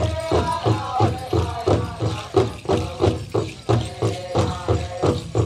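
Powwow drum struck in a steady beat, about three beats a second, with singers chanting over it in high, wavering voices.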